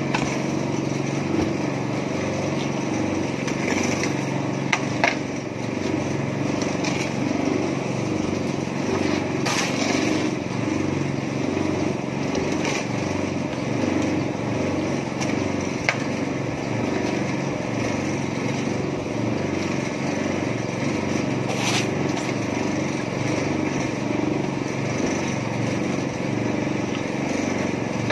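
Small petrol engine of a mini concrete mixer running steadily, with a few short, sharp knocks over the top.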